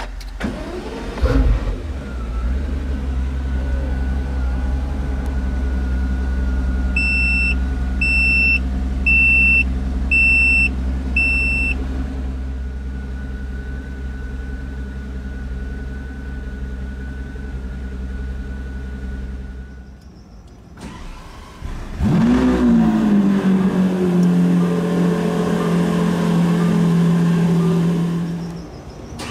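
Pagani Huayra's twin-turbo V12 started by push button: it fires and settles into a steady, deep idle, with five short electronic chimes about a second apart partway through. About 21 s in, a second engine start follows: the engine cranks, flares up and settles to a higher steady idle.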